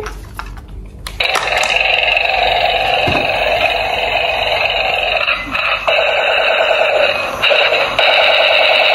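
Battery-operated toy tank playing its built-in electronic sound effects through a small speaker. The sound switches on about a second in, and from about six seconds in it becomes a fast repeating warble.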